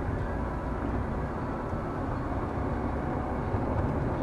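Steady rumble of a moving car heard from inside its cabin: engine and road noise.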